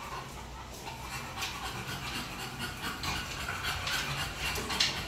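Several dogs moving about on a tiled floor and wooden pallets: irregular clicking and scraping of claws, with one sharper knock near the end.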